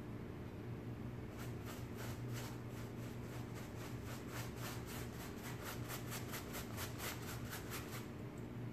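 Paintbrush scrubbing chalky paint into dampened upholstery fabric: quick scratchy strokes, several a second, starting about a second and a half in and stopping near the end, over a steady low hum.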